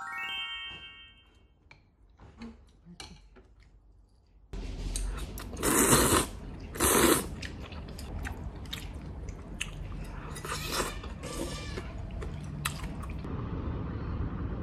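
Close-up eating sounds of a meal with chopsticks: clicks of chopsticks and tableware and chewing, with two louder noisy bursts about six and seven seconds in. A short rising tone opens the clip.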